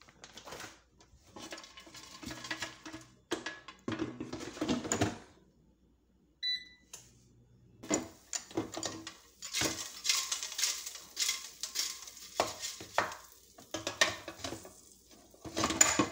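Air fryer basket clattering and knocking as it is handled, in short irregular bursts. There is a short electronic beep about six and a half seconds in.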